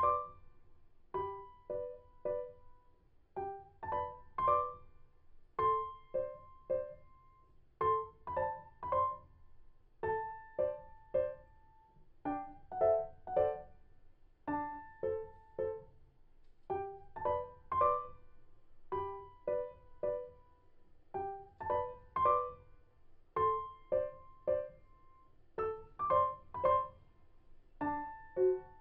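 Background piano music: a light melody of short, separate notes that die away quickly, played in short phrases that repeat every couple of seconds.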